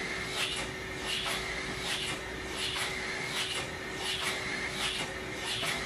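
Home-built model beam engine running on air blown from a vacuum cleaner, its cylinder exhausting in regular puffs about twice a second over the steady hum of the vacuum cleaner.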